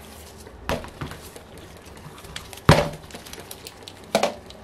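Three short knocks, the middle one loudest with a dull thud, from the metal crankcase of an O.S. FF-240 Pegasus model engine being handled and set on the bench as it is turned over by hand. There is no grinding from the freely rotating crankshaft.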